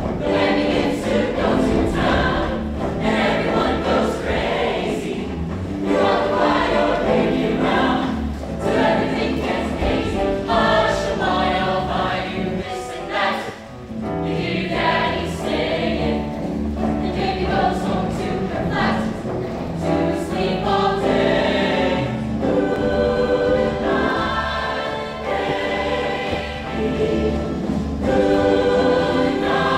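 Show choir singing together with instrumental accompaniment, a full ensemble sound at a steady loud level.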